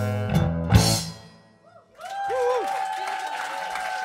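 A live rock band with drums, guitars and bass plays its final chords and closing hits, which stop about a second in and die away to near silence. From about two seconds in the audience begins applauding and cheering, with a single held tone sounding steadily underneath.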